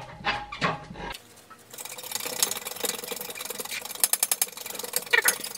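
Fast metallic ratcheting clicks and rasping from hand work on wheel studs at a 10-ton hydraulic shop press, after a few separate knocks at the start. About four seconds in comes a short run of very even, rapid ticks.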